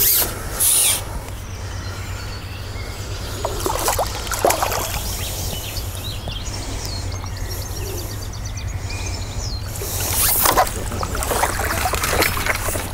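Water splashing and sloshing at the surface as a hooked carp is played on a pole and drawn toward the landing net, with irregular splashes, loudest about four seconds in and again near ten seconds, over a steady low rumble.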